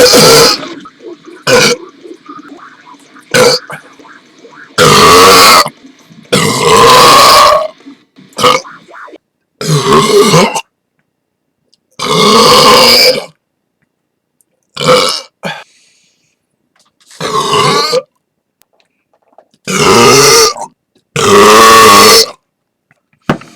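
A person burping loudly over and over: about a dozen separate belches, several drawn out to a second or more, with short pauses between them.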